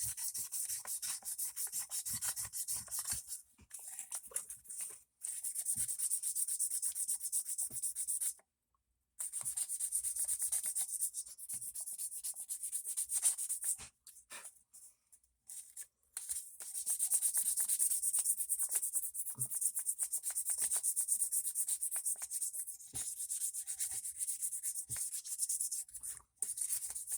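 Hand sanding a folding knife's bolster with very fine 12,000-grit abrasive: rapid back-and-forth rubbing strokes in runs, broken by a few short pauses and a longer lull about halfway through.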